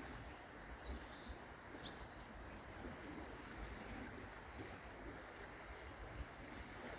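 Faint outdoor ambience: small birds give short high chirps now and then, most of them in the first couple of seconds and again about five seconds in, over a steady low hiss.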